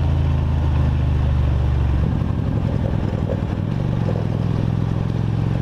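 Kasinski Comet GTR V-twin motorcycle running under way, its engine and exhaust note heard steadily from the rider's camera, with the note shifting about two seconds in and again shortly after.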